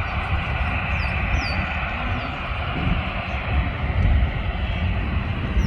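Steady roar of jet airliner engines, with wind buffeting the microphone. A bird gives short, high, falling chirps over it, about two a second at times.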